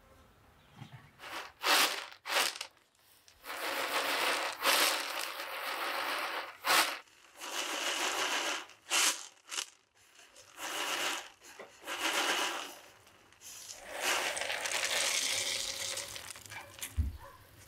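Peanuts rattling and sliding across a metal tray as it is shaken, in repeated bursts of a second or two. Near the end they are tipped off the tray into a pot.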